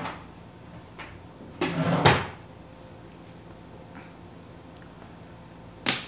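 Wire cutter of the Roxon Spark (CM1349) multitool's pliers cutting a thick electrical wire: a crunch building for about half a second and ending in a sharp snap about two seconds in. Lighter clicks of the tool come at the start, about a second in, and near the end.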